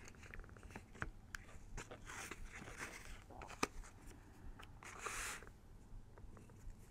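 Washi tape and card being handled: faint paper rustles and small ticks as the tape is pulled and pressed along the edge of a flattened cardboard toilet-paper roll, with a brief rasp about five seconds in.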